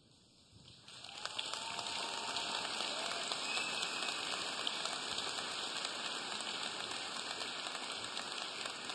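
Large audience applauding, breaking out about a second in and holding steady, with a faint cheer or two.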